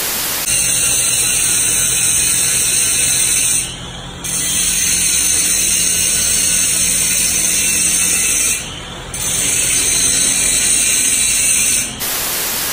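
Brief bursts of TV-static white noise at the start and near the end. Between them a steady high hiss with a faint low hum, which dips twice, about four and nine seconds in.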